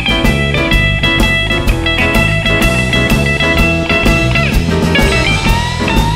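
Blues band playing an instrumental: electric guitar lead over a Yamaha keyboard and bass guitar, with a steady beat. Past the middle, some notes slide in pitch.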